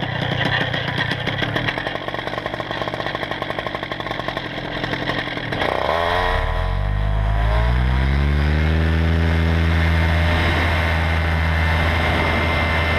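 Paramotor two-stroke engine running at takeoff power, its carburetor screen just cleared of pocket lint. About six seconds in the sound changes abruptly, then the engine tone rises in pitch and settles into a steady drone.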